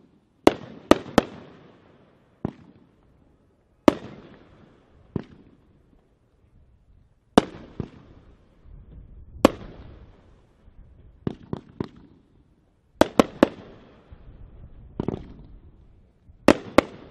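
Red Rhino Race Maker firework firing a series of aerial shots: sharp bangs, several coming in quick clusters of two or three, each trailing off in a short fading tail, with brief pauses between clusters.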